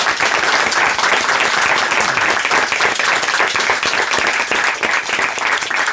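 A small audience and the panel applauding steadily, many hands clapping at once.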